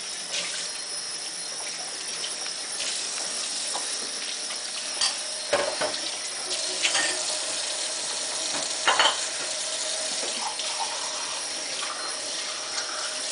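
Kitchen faucet running steadily into a stainless steel sink during hand dishwashing, with a few clinks and knocks of dishes about halfway through.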